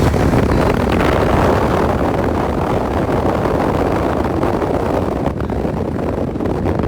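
Wind rushing through an open car window at highway speed, mixed with road and tyre noise: a loud, steady rush that eases slightly about five seconds in.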